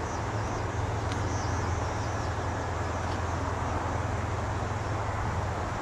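Steady low rumble of an Amtrak passenger train running away down the track, with faint high chirping over it.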